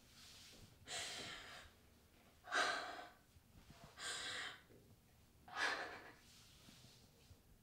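A young woman breathing heavily in gasps, four loud breaths about a second and a half apart.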